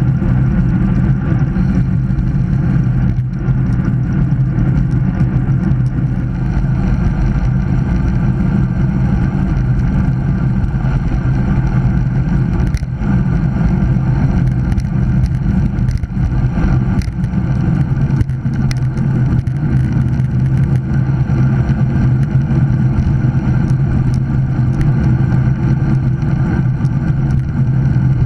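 Wind rushing over a bike-mounted camera and tyre noise on asphalt during a fast road-bicycle descent, with a steady low hum underneath.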